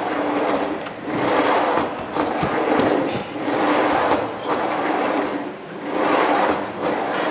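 Wheels of a gymnastics training trolley rolling on a wooden track, a rumble that swells and fades about once a second.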